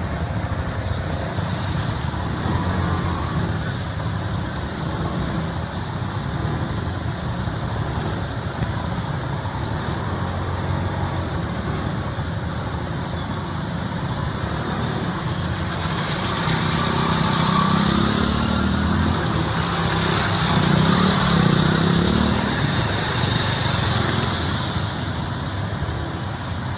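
Vehicle engine running as it drives through a flooded road, with water hissing and splashing around the wheels. The engine and the splashing get louder about two-thirds of the way through, then ease off near the end.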